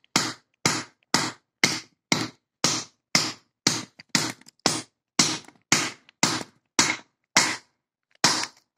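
A wrench hammering the front of a cast-iron padlock in a steady run of sharp metal blows, about two a second, spacing out a little near the end. This is a kinetic attack: repeated impacts meant to jar the locking mechanism open without a key.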